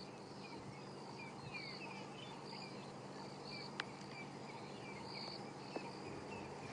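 Faint bush ambience: insects trilling in short, repeated high bursts, with scattered small bird chirps and a low steady hum underneath.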